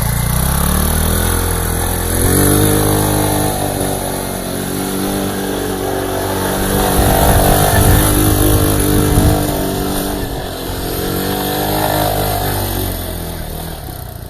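Kuba 600cc ATV engine revving up and pulling hard. Its pitch climbs over the first couple of seconds, rises and falls through the middle, then drops and fades near the end.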